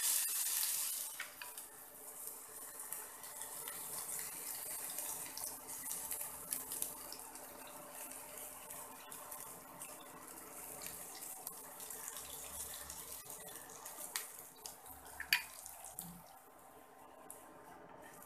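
Egg-and-semolina batter sizzling as it is spooned into hot oil in a nonstick frying pan over low heat: a steady frying hiss, loudest as the batter first hits the oil. A few sharp clicks of the metal spoon and the spatula against the pan cut through it.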